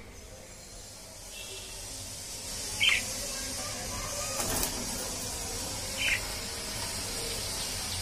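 Pet budgerigars giving two short, sharp chirps about three seconds apart, over a steady high hiss that builds from about two seconds in.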